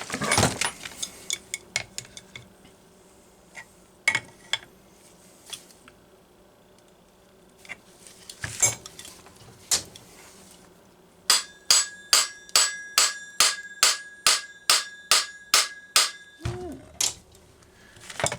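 A hammer striking a steel flywheel puller on a Homelite Super XL chainsaw's crankshaft to shock the flywheel loose: a steady run of about fifteen ringing metal strikes, about three a second, in the second half. Before that, scattered clicks and clinks of tools being handled.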